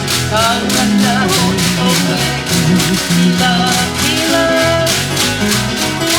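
Live Hawaiian music accompanying a hula dance: a voice singing a wavering melody over plucked strings and a quick, steady percussive beat.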